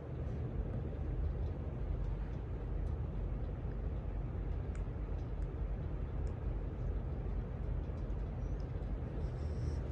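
A 48-inch Honeywell ceiling fan running steadily on high, a pretty noisy low rush of blades and motor, with a few faint ticks.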